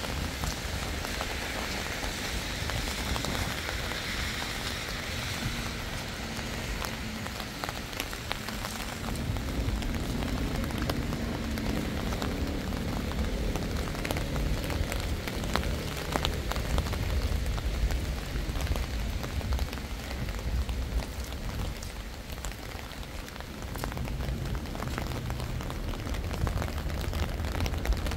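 Steady rain, with many small drop ticks scattered over an even hiss and a low rumble underneath.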